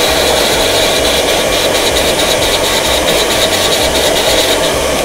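Hair dryer blowing steadily, drying a clipper motor that has just been rinsed in distilled water; switched off at the very end.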